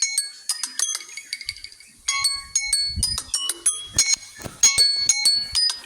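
Timer alarm tone playing a quick run of bright chime notes, several a second, each struck sharply and ringing briefly, with a few low thuds mixed in around the middle.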